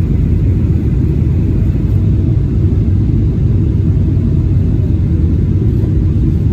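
Steady low rumble inside an airliner cabin on final approach, as the landing gear comes down. A faint steady hum fades out about five seconds in.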